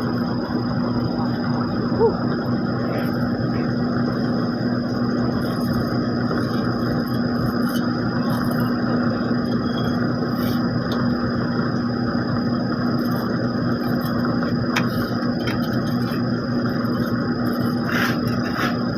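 Heavy paving machinery engines running steadily at an asphalt overlay job, a constant low hum with no change in speed.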